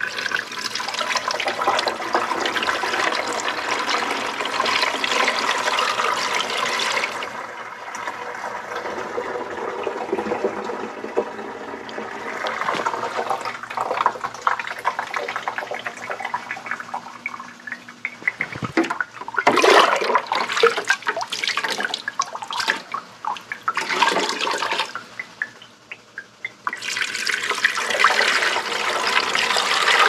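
Water poured from a glass measuring cup into the top fill opening of a tower ultrasonic humidifier, running down into its tank. It comes in several pours: a long one starting suddenly, a stretch of splashing and sloshing in the middle, and another steady pour near the end.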